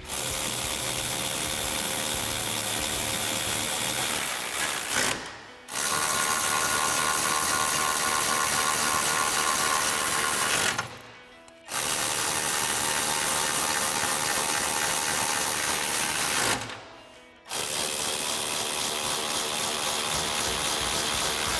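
Cordless electric ratchet with a 10 mm socket running down bolts, in four runs of about five seconds each with short pauses between them, one per bolt.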